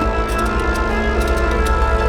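Moros y Cristianos festival band music: a march in sustained minor-sounding chords over a heavy bass, with regular drum and cymbal strokes.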